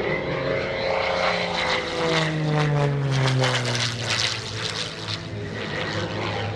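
MXS-RH aerobatic monoplane's piston engine and propeller at high power during a low, fast pass. The engine's pitch falls steadily as the aircraft goes by, it is loudest around the middle, and the note then settles as the plane pulls up and climbs away.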